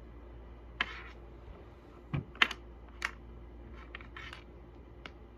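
Irregular plastic clicks and knocks of plugs and charger cables being handled and pushed into a power strip, a handful in all, the sharpest about two and a half seconds in.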